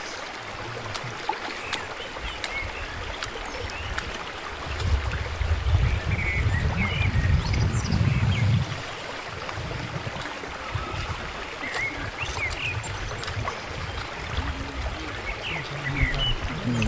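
Steady rush of flowing river water with scattered short bird chirps. A low rumble rises over it from about four and a half seconds in and drops away about four seconds later.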